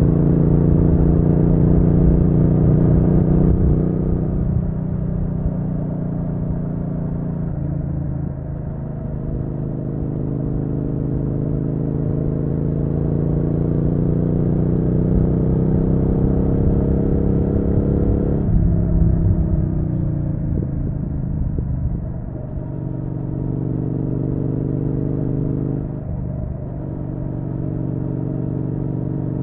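Triumph Street Twin's 900 cc parallel-twin engine running under way, heard raw from the bike. Its note climbs slowly and drops abruptly several times through the ride.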